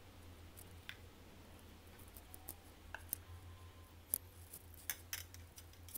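Faint scattered clicks and light taps of a metal spoon on a bowl as ginger garlic paste is spooned onto raw chicken pieces, over a low steady hum.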